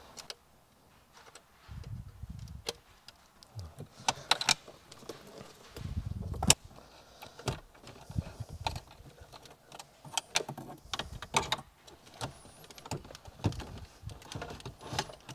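Irregular plastic clicks, knocks and rattles, with a few dull thuds, as a car head unit is pushed into its dashboard housing and jams against the cables behind it.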